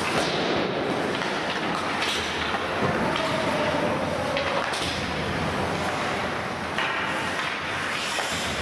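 Hockey game play: a steady din of the rink, with frequent short knocks and clatters from the play.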